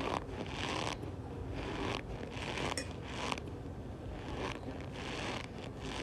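Cornstarch being squeezed and pressed, giving a run of short squeaky, rasping crunches, roughly one or two a second.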